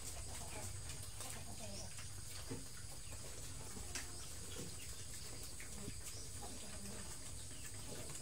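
Young pigs eating feed from a concrete trough: scattered chewing and snout clicks, with a couple of sharper knocks, over a steady low hum. Chickens cluck faintly.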